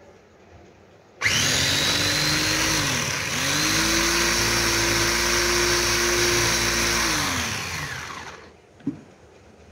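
Electric mini chopper's motor whirring as its top is pressed down to chop beetroot finely. It starts about a second in and runs in two pulses: a short run, a brief dip in pitch, then a longer run that winds down near the end.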